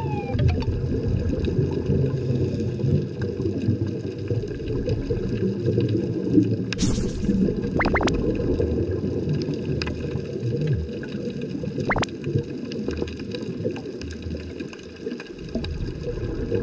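Underwater ambience recorded on a rocky seabed: a steady, dense low crackling wash, with a few sharp clicks and a short hissing burst about seven seconds in.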